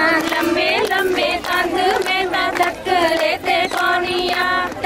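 Women singing a Punjabi folk song together in high voices, with held notes and quick ornamented turns, over sharp percussive beats.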